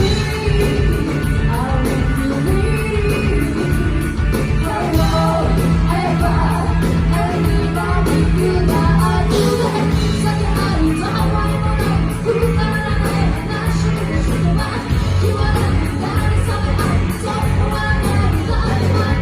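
Live rock band playing with singing, heard as a loud, steady mix of bass, drums and vocals in a hall.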